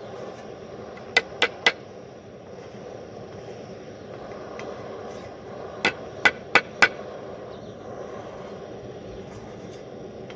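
A metal spoon tapping against the pot of melted lead while dross is skimmed off: three quick taps about a second in and four more around six seconds, over a steady rushing noise.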